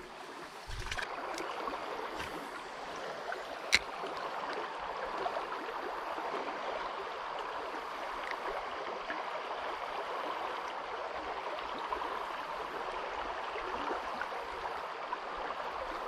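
Creek water running steadily over the current, with one sharp click about four seconds in.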